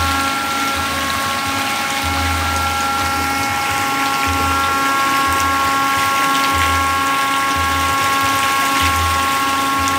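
Paddlewheel aerator running on a fish pond: a steady electric motor and gearbox whine made of several held tones, over continuous churning, splashing water.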